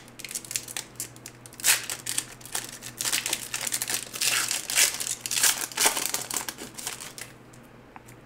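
Trading card pack wrapper being crinkled and torn open by hand, in irregular bursts of crackling that stop about seven seconds in.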